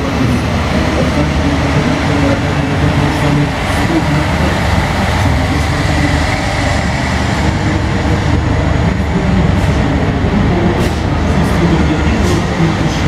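Heavy six-wheeled military trucks, including a truck-mounted howitzer and a tank transporter carrying a tank, driving past in a close column: a steady, loud rumble of diesel engines and big tyres on the road.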